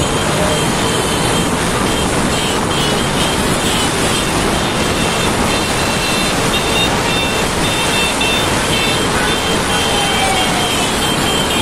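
Steady rush of road traffic and wind noise while moving through a road jammed with cars and motorcycles. Short high-pitched tones sound over and over through the middle.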